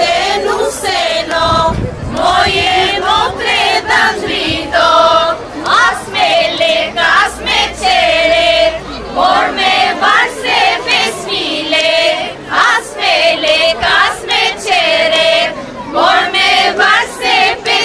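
A group of voices singing together in chorus, with long held notes that waver in pitch, phrase after phrase.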